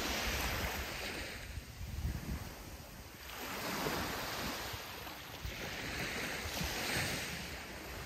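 Sea waves breaking and washing onto a sandy beach, three surges in a row, each swelling and then fading back.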